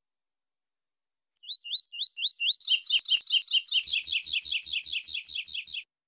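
Male double-collared seedeater (coleiro) singing: a few short rising notes, then a fast run of repeated chirped notes lasting about three seconds.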